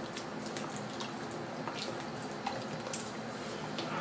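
Tomato juice poured steadily from a carton into a pot of simmering beans in sauce.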